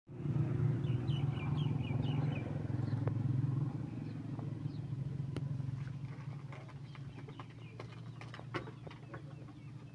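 A low engine drone, loudest for the first few seconds and then fading steadily. Birds chirp between about one and two and a half seconds in, and a few sharp clicks come later.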